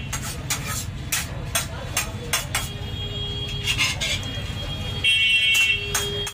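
Background noise of a busy eatery: a steady low rumble, murmured voices and frequent irregular sharp clinks and clicks, with a couple of brief high held tones.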